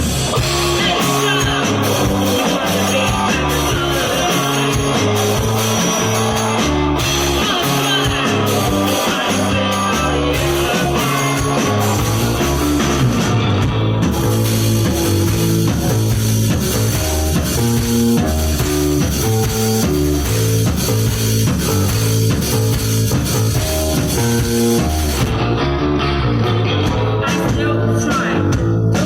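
Live psychedelic rock band playing: electric guitar, bass guitar and drum kit with a steady beat. Near the end the cymbals drop out, leaving mainly guitar and bass.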